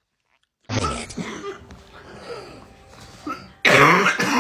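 A person coughing: a sudden cough about a second in, quieter sound after it, then a louder, harder cough near the end.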